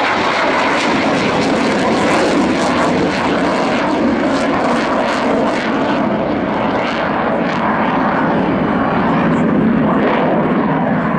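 An F-4 Phantom II's twin J79 turbojets running at high power as the jet climbs away with its gear down: a loud, steady jet roar with a ragged crackle through the first half, growing duller after about six seconds as the aircraft recedes.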